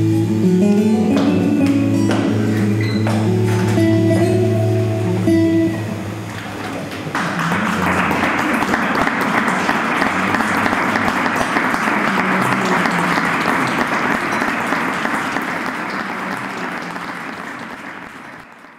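Music with held, plucked-sounding notes, giving way about seven seconds in to audience applause that fades out near the end.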